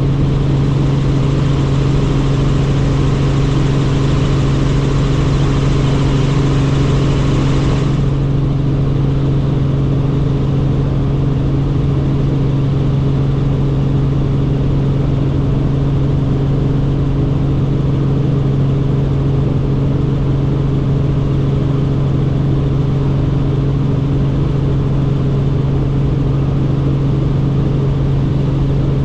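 Helicopter in flight, heard from inside the cabin: a steady, loud drone of engine and rotor with a constant low hum and its overtones. A higher hiss over it drops away suddenly about eight seconds in.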